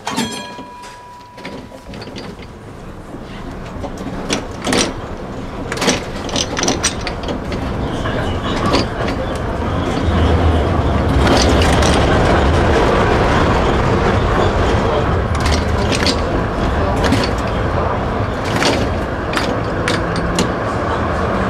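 DÜWAG Kurbelwagen tram picking up speed: the running rumble and wheel noise build over the first ten seconds and then hold loud and steady, with sharp clicks and knocks as the wheels run over rail joints and points.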